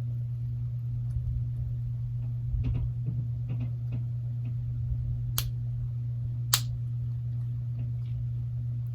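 A few small sharp clicks of flex-cable connectors being pressed onto a Galaxy Note 8's board, two louder ones past the middle, over a steady low hum.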